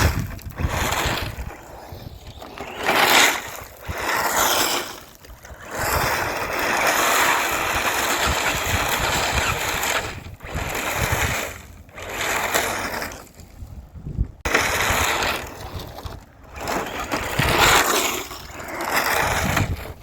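Battery-powered RC rally car driving fast over bumpy grass and stones. Its electric motor whines and the tyres and chassis rattle over the ground in repeated bursts as it speeds up and slows down.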